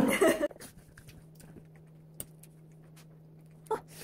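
A knife and fork cutting through lasagna on a plate: faint scattered clicks and scrapes of the cutlery on the plate, with one sharper clink a little over two seconds in.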